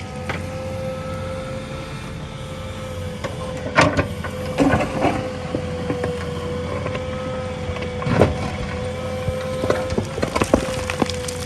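JCB 3DX backhoe loader's diesel engine running steadily under a constant high whine, with sharp knocks and clanks from the machine's work about four seconds in, again near eight seconds, and several near the end.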